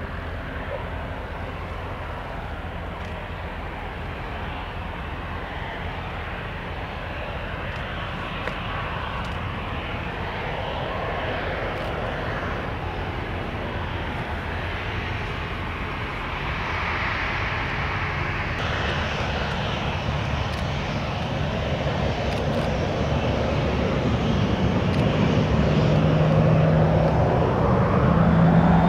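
Boeing 737-800 airliner on approach to land, the noise of its twin CFM56 turbofan engines growing steadily louder as it comes nearer.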